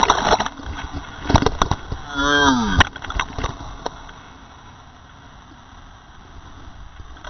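Whitewater splashing over the raft and camera, with a few sharp knocks and a short falling yell from a rafter about two seconds in. After about four seconds it settles to the steady rush of the rapids.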